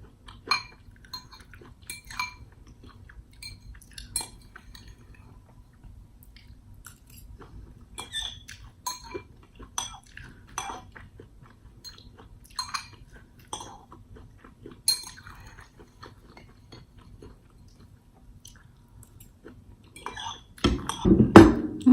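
Cutlery scraping and clinking against a bowl in irregular, sharp clicks with brief ringing, scooping out the last corn kernels, with some chewing. A louder burst of close, low noise comes near the end.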